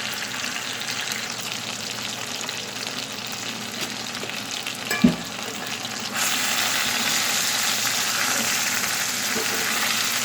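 Tandoori-marinated chicken sizzling in a hot cast iron pan. A short knock comes about five seconds in, and a second later the sizzle steps up suddenly, louder and brighter.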